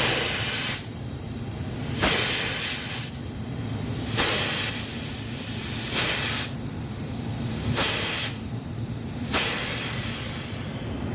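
Pressurised nitrogen blasting out through an HVAC refrigerant discharge line as it is flushed of R11 and moisture. It comes as a loud hiss that surges sharply about every two seconds, six times, easing off between surges.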